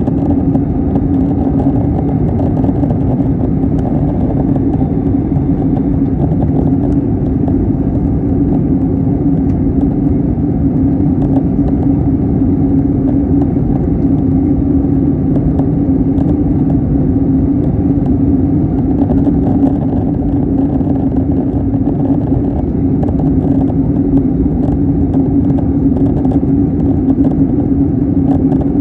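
Airbus A321neo cabin noise in flight, heard at a window seat over the wing: a loud, even rush of engine and airflow noise with a steady low hum.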